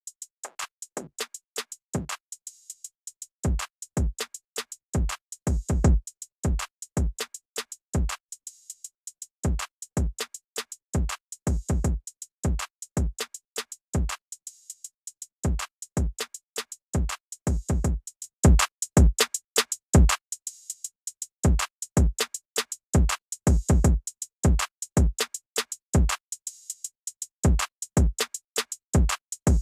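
An 80 bpm boom bap drum beat playing back in FL Studio Mobile through a multiband compressor on the master: a steady pattern of short programmed drum-machine hits, some with deep low kick thumps.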